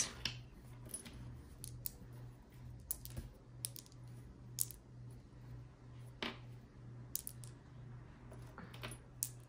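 Loose beads and small jewelry pieces clicking lightly against each other and the tabletop as fingers push and sort them: scattered, irregular sharp ticks.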